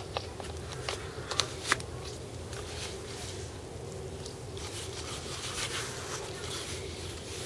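Light clicks and taps as a knife is slid into its leather sheath and handled, most of them in the first two seconds, then only a few faint ticks over a steady low hum.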